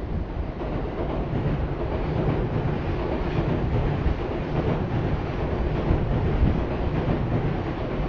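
Steady low rumble of passing vehicles, building slightly over the first few seconds.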